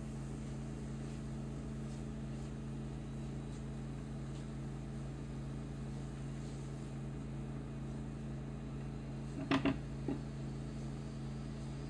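A steady low hum, with a few sharp utensil knocks against the cooking pan about nine and a half seconds in as the tofu scramble is stirred together.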